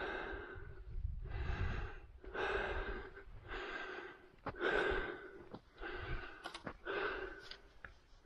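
A hiker breathing hard and rhythmically, about one breath a second, close to the microphone. A low wind rumble runs underneath, with a few sharp clicks.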